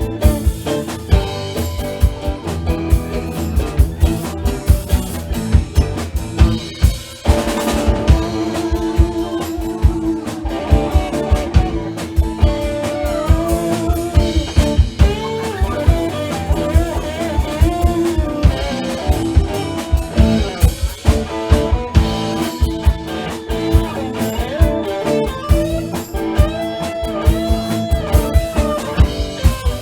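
Live band playing with guitar and drum kit: a steady drum beat under sustained chords, with a melody of gliding, bending notes coming in about twelve seconds in.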